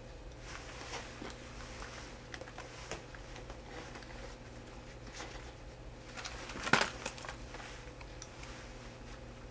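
Close rustling and handling noises with scattered light clicks, and one sharp knock about two-thirds of the way through, over a steady low hum.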